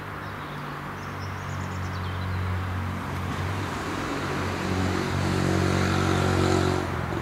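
Class 170 Turbostar diesel multiple unit pulling away, its underfloor diesel engines giving a steady low drone. The drone swells and gains a higher tone about halfway through, then drops back near the end.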